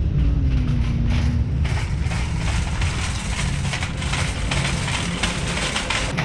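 Loud, continuous low rumble with irregular knocks and rustles, like the handling and walking noise of a handheld camera being carried.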